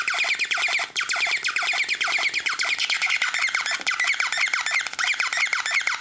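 Home-built synthesizer made from a 'digital bird' sound kit, modified with a bandpass filter, a decade-counter sequencer and an LFO. It churns out a busy, steady stream of electronic chirps, several a second, each one falling quickly in pitch.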